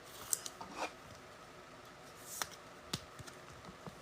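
Trading cards being handled and slid against one another, soft rustles and scrapes with a sharp little click about three seconds in.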